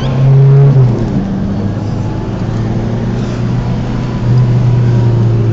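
Car engine running while driving, heard from inside the cabin as a steady low drone. It gets louder and higher for a moment at the start, and louder again from about four seconds in.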